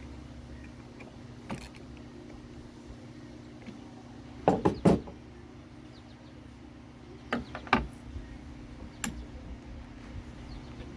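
Knocks and clicks from tools and parts while a manual sandbox backhoe is taken apart, over a steady low hum. There is one knock about a second and a half in, a quick run of three loud ones in the middle, a pair a little later and one more near the end.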